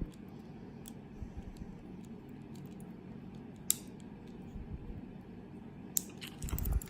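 Faint metallic clicks and scraping of a wire pick and tension tool working the levers of a Silverline four-lever brass padlock, with a sharper click a little before four seconds in and a few more clicks near the end.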